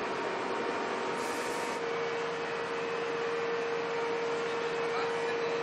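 Steady mechanical noise with a constant hum from fire engines' engines and pumps running, with a brief higher hiss about a second in.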